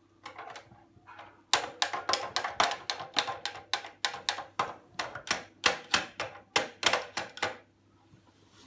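A rapid run of sharp knocks, about four a second, for roughly six seconds, starting about a second and a half in after a few fainter taps.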